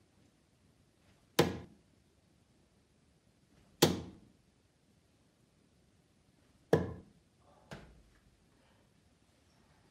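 Three steel-tip darts thudding into a Winmau Blade 5 bristle dartboard, about two to three seconds apart, with a fainter knock about a second after the third.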